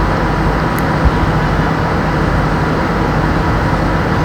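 Brema commercial ice maker's condensing unit running: a steady mechanical whir with a low hum from its fan and compressor, its condenser clogged with dust.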